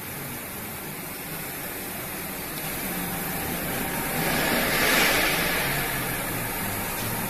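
Thermoforming vacuum packaging machine running: a steady machine hum under a hissing rush that swells about four seconds in and then eases.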